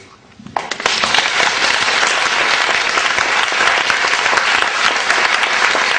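Audience applauding steadily; the clapping swells in about a second in.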